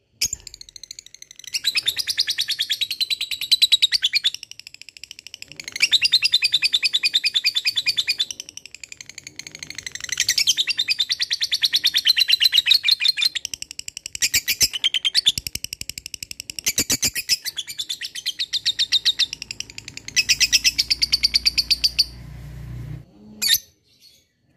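Lovebird ngekek: several long runs of very rapid, high-pitched chattering trill, each lasting two to four seconds with short pauses between. A low rumble and a knock come near the end.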